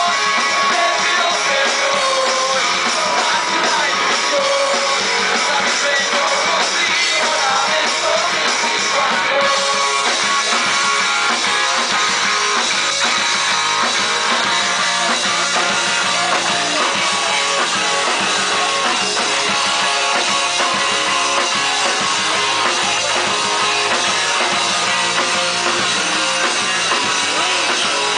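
Live punk rock band playing: electric guitar and drum kit, with singing over roughly the first ten seconds.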